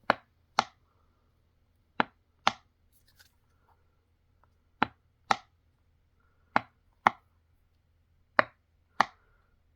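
Five pairs of sharp taps on something hard, the two taps of each pair about half a second apart, the pairs coming about every two seconds.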